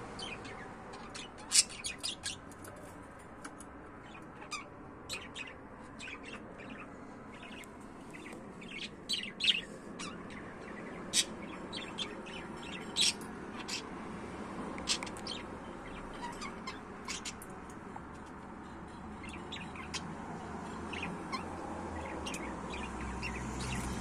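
Budgerigars chirping, with short, sharp calls scattered irregularly over a steady background hum. A low rumble builds near the end.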